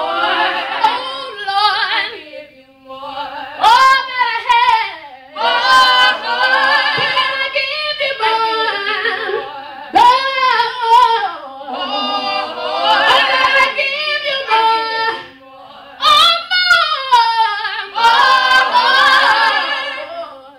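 A small gospel vocal group singing, a woman's lead voice carrying long phrases that bend up and down in pitch over the group's voices, fading out near the end.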